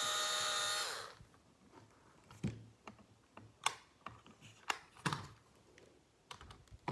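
Ozito electric screwdriver running steadily as it backs a screw out of a Qiyi clock puzzle, then winding down and stopping about a second in. A string of light clicks and knocks follows as the plastic clock puzzle is handled, and the screwdriver starts again at the very end.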